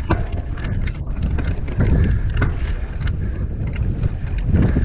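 Mountain bike rolling over a dry dirt trail: tyre noise with frequent clicks and rattles from the bike over the rough ground, and wind rumbling on the microphone.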